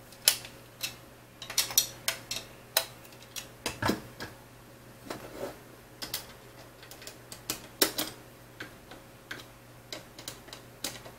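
Hand screwdriver working screws into T-slot nuts on an aluminium extrusion, with its tip and the parts clicking and tapping against each other: irregular sharp clicks and a duller knock about four seconds in.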